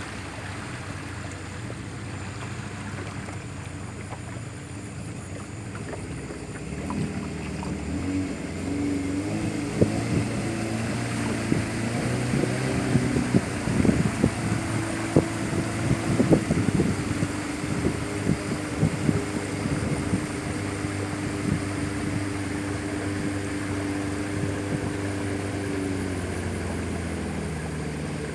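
A riverboat's motor running steadily under the rush of water and wind, with irregular knocks of water slapping the hull from about ten to seventeen seconds in. Near the end the engine note drops as the boat throttles back.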